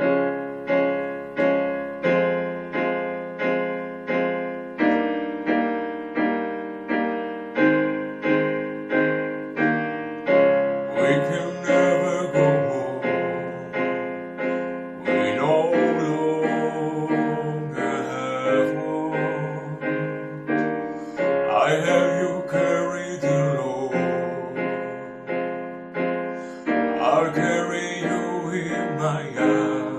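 Instrumental song intro: piano playing repeated chords, roughly one a second. About ten seconds in, a wordless line that slides in pitch, like a voice, joins over the chords.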